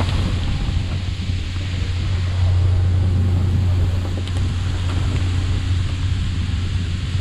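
Fishing boat's engine running with a steady low hum, under an even hiss of spraying water and sea.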